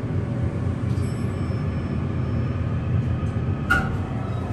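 U.S. Elevator hydraulic elevator car travelling, a steady low rumble from the running machinery heard from inside the cab. About three-quarters of the way through, a single short chime sounds as the car arrives.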